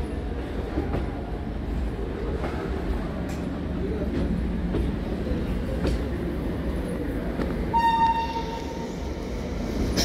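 Electric local train running along the tracks with a steady low rumble. About eight seconds in, a train horn sounds one short blast of about a second.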